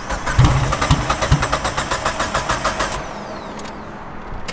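The Evo 8's turbocharged 4G63 engine is cranked on its starter in a fast, even rhythm. It gives a few low coughs in the first second and a half but does not catch, and the cranking stops about three seconds in. This is a failure to start that the owners put down to a fault in the fuel system.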